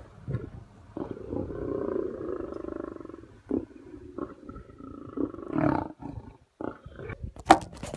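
Lions growling at a buffalo kill as they feed on it: one long growl, then several shorter ones. A few sharp cracks near the end are the loudest sounds.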